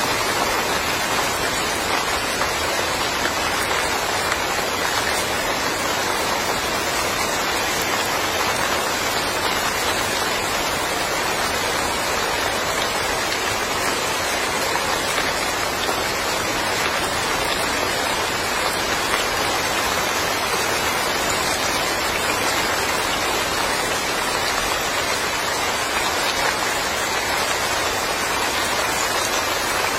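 Steady rain falling, a dense even hiss of raindrops on surfaces.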